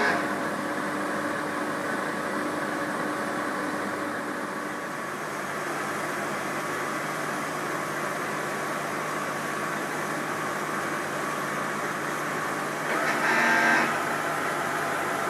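MAHO MH 700 C CNC milling machine running under program control, its motors giving a steady hum with a faint steady whine. Near the end a louder whine lasts about a second.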